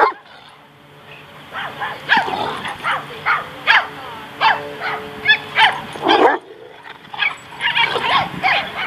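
Great Danes play-fighting, with a fast run of short barks and yips, roughly two a second, and a louder, deeper bark about six seconds in.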